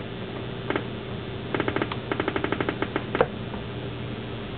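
Circuit-bent PC Junior learning computer glitching through its speaker: a steady low electronic buzz, with a rapid even stutter of clicks, about eight a second, for a second and a half in the middle. The added clock-oscillator circuit is injecting randomness into the CPU.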